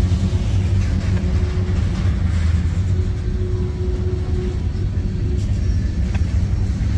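Covered hopper cars of a CSX freight train rolling past on the rails: a continuous, even low rumble of steel wheels on track. A faint steady whine rises above it twice, then fades.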